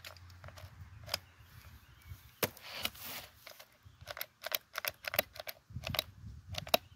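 Repeated sharp clicks from the trigger of a Ryobi 18-volt brushless pruning chainsaw whose motor stays silent. The saw has died after a few cuts and will not run. The clicks are scattered at first, then come quicker in the second half.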